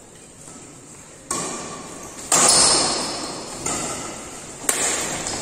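Badminton rackets hitting a shuttlecock in a rally: four sharp hits about a second apart, each ringing out in the hall's echo, the second one, a little past two seconds in, the loudest.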